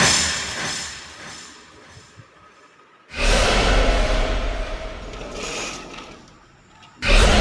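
Horror sound effects: sudden booming whoosh hits with a deep rumble, each fading away over a couple of seconds. One is fading as the sound begins, a second hits about three seconds in, and a third hits near the end.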